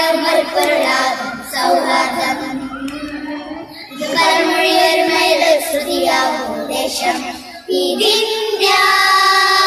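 A group of schoolchildren singing a Malayalam patriotic song in unison. The phrases are held on steady notes, with short breaks between them about a third of the way in and again near the end.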